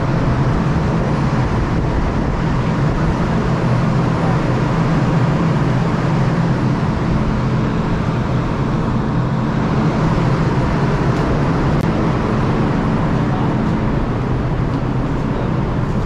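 Steady drone of a ship's machinery at anchor: a constant low hum under an even rush of noise.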